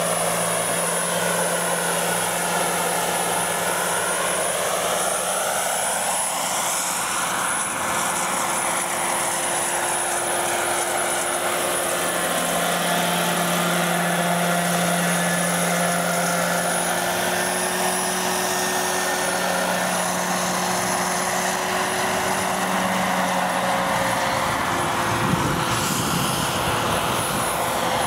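Two radio-controlled scale model helicopters flying together, their motors and rotors giving a steady whirring drone that swells and shifts in tone as they move past and away.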